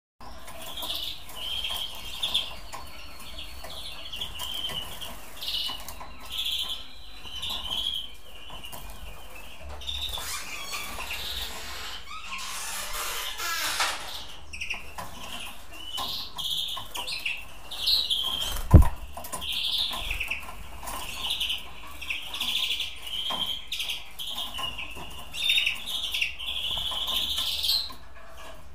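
Young European greenfinches chirping with many short, repeated calls, with a stretch of rustling wing movement in the middle and one sharp knock about two-thirds of the way through.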